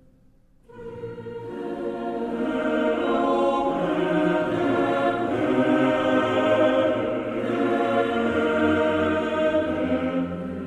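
Background music: a choir singing sustained chords. It swells in about a second in after a brief near-silence.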